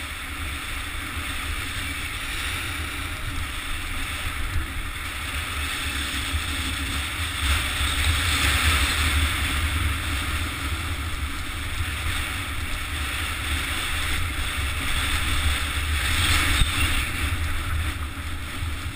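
Wind rumbling on the microphone of a GoPro on a mountain bike running fast down a loose gravel track, over a steady hiss and crunch of the tyres on stones and the bike rattling. One sharp tick near the end.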